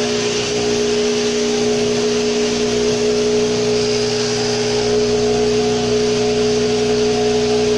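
Sheep-shearing handpiece running with a steady, even hum while crutching a lamb, clipping the wool from around its tail and crotch.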